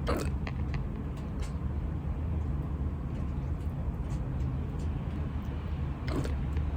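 Hiccups, one right at the start and another about six seconds in, each short and sharp, over a steady low rumble.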